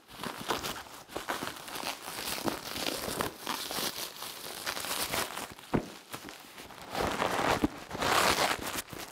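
Black plastic film and bubble wrap crinkling and rustling as the wrapping is pulled and torn off a parcel, with one sharp snap a little past halfway.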